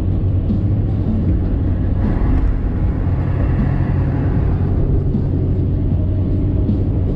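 Ford Super Duty pickup's 6.7 L Power Stroke V8 turbo-diesel cruising at highway speed, heard from inside the cab: a steady low engine drone under tyre and wind noise. The hiss swells and fades for a couple of seconds near the middle.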